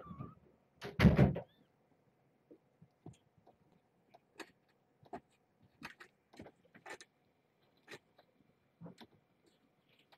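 A door shutting with one loud thump about a second in, followed by scattered faint clicks and taps.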